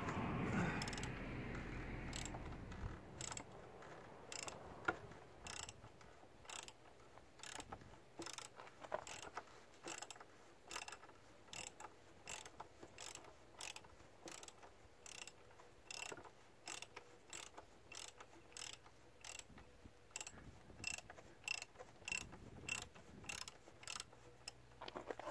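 A socket ratchet clicking steadily, about two clicks a second, as it is worked with a 27 mm socket to undo the oil filter housing cap. A short rustle comes at the start, before the clicking.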